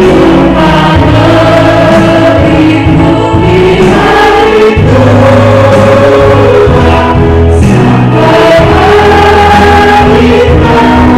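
A praise-and-worship song, a group of voices singing together over instrumental backing with a steady bass line.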